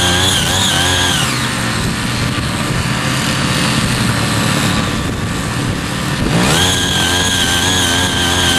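Small engine of a foldable mini power tiller running fast, dropping to a lower speed about a second in, then revving sharply back up about six seconds in.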